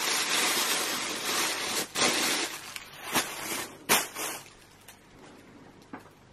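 Plastic shopping bag and wrapping rustling and crinkling as items are pulled out, with a few sharp crackles about two, three and four seconds in, then much quieter handling.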